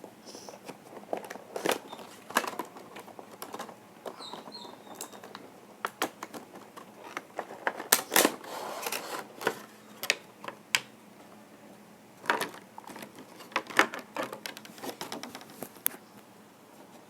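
Irregular clicks, taps and rustling as a cardboard Funko Pop box and its plastic tray are handled and opened and the vinyl figure is taken out.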